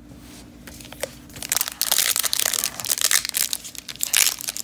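Foil wrapper of a hockey card pack crinkling and tearing as it is pulled open by hand, a dense crackle that starts about a second and a half in.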